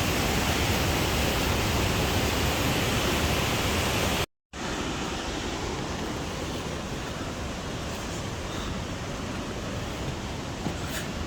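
Waterfall rushing steadily in a continuous, even wash of water noise. It cuts out briefly about four seconds in and comes back slightly quieter and duller.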